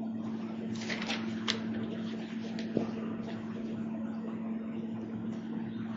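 Steady low electrical hum and background hiss of a room recording, with a few faint clicks about a second in and a small knock near the middle.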